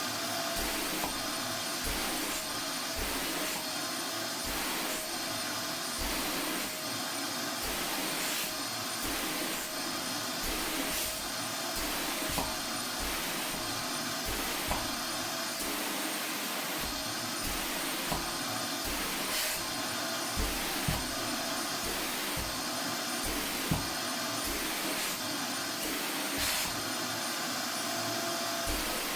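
Vacuum cleaner running steadily over sofa upholstery, its motor whine wavering slightly in pitch, with a few brief knocks along the way.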